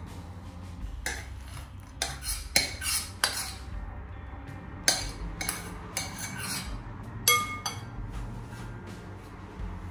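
Metal spoon scraping and knocking against a stainless steel pot as cooked rice is scraped out into a glass bowl. A string of irregular clinks and scrapes, with a ringing metallic knock about seven seconds in.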